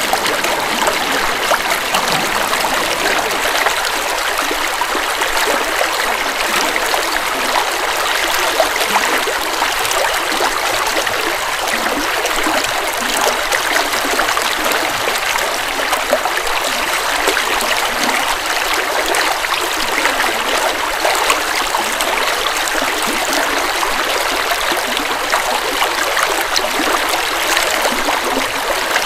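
River water flowing and splashing over rocks, a steady, even rush with many small splashes and gurgles.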